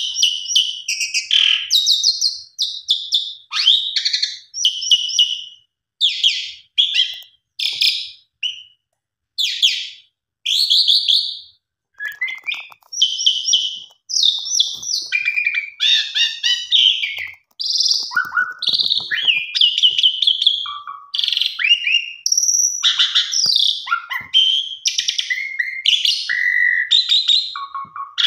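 Jalak suren (Javan pied starling) singing: a long run of loud, harsh chattering and whistled phrases in quick succession, broken by a few short pauses in the middle.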